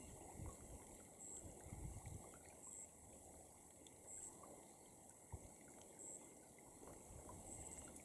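Near silence: faint outdoor ambience with a few soft low rumbles of wind on the microphone.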